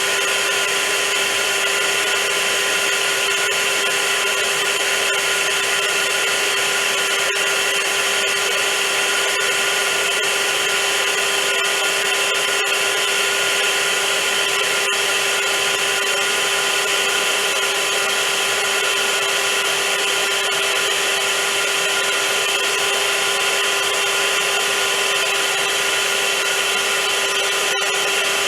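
Vacuum cleaner running continuously: a steady motor hum with a constant tone over a loud hiss of rushing air, unchanging throughout.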